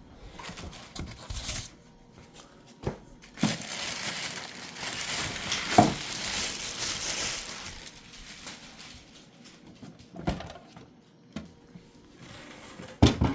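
Packaging being handled and pulled apart: crinkling and rustling, with a few knocks, the longest stretch of rustling in the middle.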